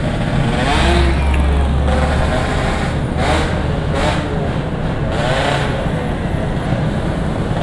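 Vehicle engines running steadily, with the engine pitch rising and falling a few times as vehicles rev or pass.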